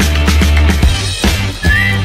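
Upbeat background music with a steady drum beat and heavy bass, with a short rising tone near the end.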